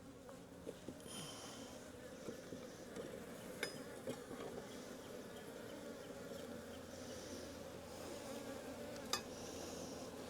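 Honey bees humming steadily around an open hive, with a couple of light clicks from handling.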